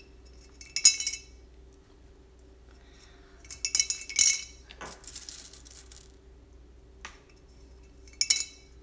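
Coins dropped one at a time through the slot of a painted owl piggy bank, each landing inside with a bright metallic clink. There are a few single clinks seconds apart and a quick run of them near the middle.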